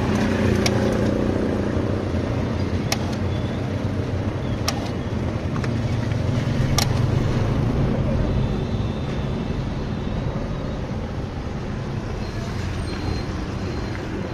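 Soda fountain pouring fizzy blueberry soda into a paper cup, over a steady low motor rumble, with a few sharp clicks.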